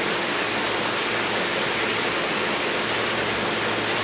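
Steady rush of circulating aquarium water, with a faint low hum underneath.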